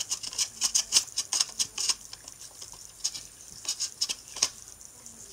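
Foam darts being pushed one by one into a Nerf 18-dart clip: a string of irregular plastic clicks and scratchy squeaks as each dart presses down the magazine's stiff new spring.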